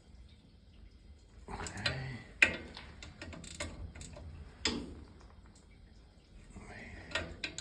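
Scattered metal clicks and knocks of a wrench working the corner bolts on a circulator pump's bearing assembly as they are tightened, the sharpest about two and a half seconds in, over a low steady hum.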